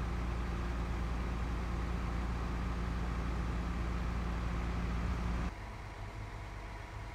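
Parked fire trucks' diesel engines idling, a steady low rumble with a level hum on top. About five and a half seconds in it drops to a quieter, steady idle.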